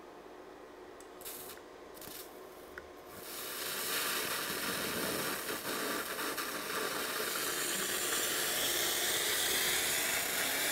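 A Multiplaz 3500 steam-plasma torch is lit and warming up, giving a steady hiss. The hiss starts about three seconds in and grows louder and brighter.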